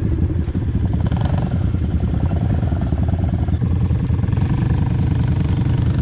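ATV (quad bike) engine running steadily.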